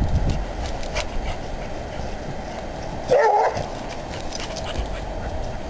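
A hound barks once, a short single bark a little over three seconds in, over a low steady rumble of wind on the microphone.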